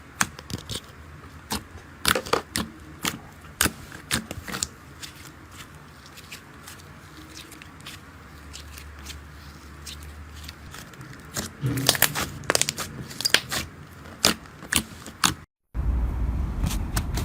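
Slime being pressed and poked close to the microphone, giving irregular crackling pops and clicks that come thicker and louder in the last few seconds. After a brief cut to silence near the end, a louder steady sound begins.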